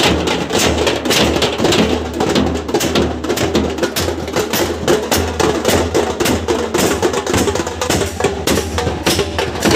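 Dhol and other drums beaten hard in a fast, dense rhythm of rapid strikes.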